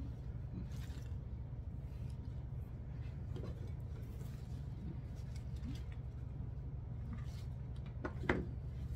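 Faint rustling and light clicks of artificial flower stems and leaves being handled in a vase arrangement, over a steady low hum. One sharper click comes near the end.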